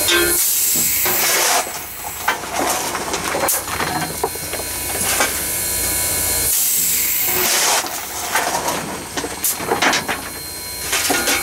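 Coal being hand-fired into the firebox of Southern Railway 2-8-0 steam locomotive No. 630: the scoop shovel scrapes loudly twice, about a second in and again about seven seconds in, with scattered metallic clanks, over a steady steam hiss.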